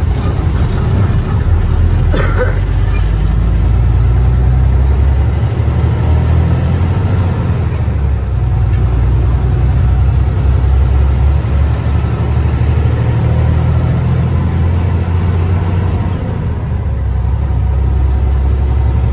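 Heavy truck's diesel engine running under way, with its steady low drone and road noise heard from inside the cab. There is a brief knock about two seconds in.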